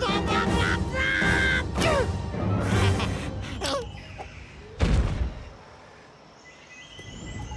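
A cartoon Rabbid screaming over background music, its high voice wavering and sliding in pitch for the first few seconds. A deep thud comes just before five seconds in, and then only quieter music is left.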